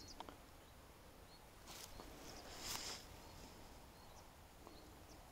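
Near silence: quiet riverbank ambience with faint, short, high chirps repeating through it, and two brief rustles, the louder about two and a half seconds in.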